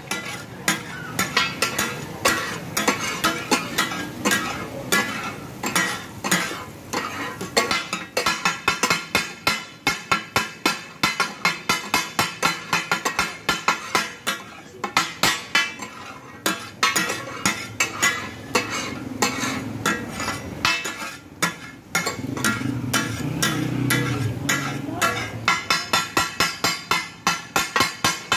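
Metal spatula-blades striking a large steel griddle (tawa) in rapid, ringing clanks several times a second: the takatak chopping and mixing of mutton organ meat. There are short pauses in the rhythm.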